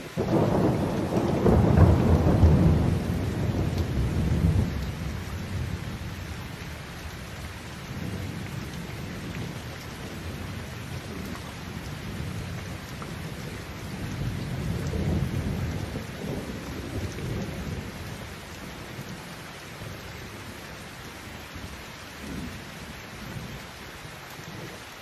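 Heavy rain pouring steadily, with a loud crack of thunder at the very start that rolls away over about five seconds. A second, softer roll of thunder comes about fourteen seconds in.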